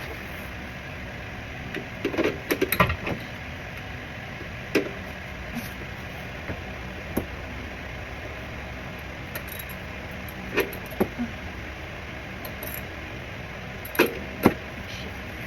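Metal hand tools clinking and knocking as they are picked up and set down: a cluster of clinks about two to three seconds in, scattered single ones after, and two sharper knocks near the end, over a steady background noise.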